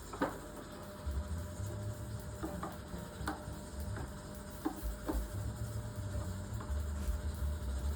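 A utensil stirring in a kitchen bowl or pot, knocking lightly against its side several times at uneven intervals, each knock with a short ring.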